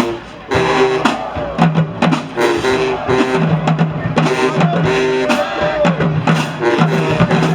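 Marching band playing: brass in short repeated chord stabs over low held notes, with bass drum and snare drum strikes.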